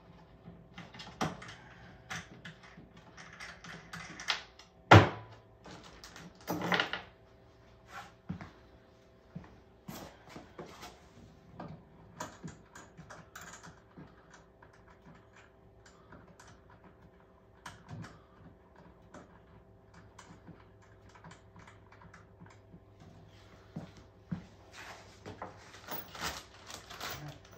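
Irregular clicks, taps and knocks of hardware being handled as a wooden tripod and trunk are taken apart. There is one sharp knock about five seconds in and another just under two seconds later.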